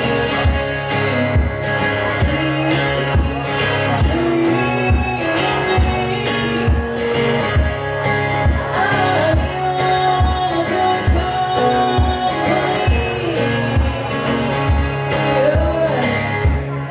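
Live acoustic guitar strumming with a singing voice, over a steady low thump about twice a second.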